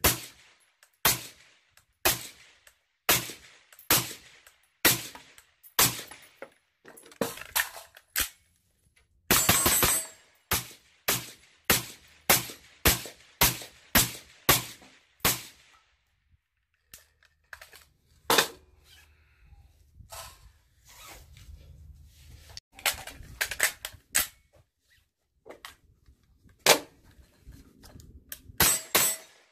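CZ Bren 2 Ms pistol in 5.56 with a CZ 556Ti titanium suppressor firing strings of single shots, about one to two a second. About nine seconds in the shots come so fast they run together, and from about 16 to 22 seconds there are only a few before the firing picks up again.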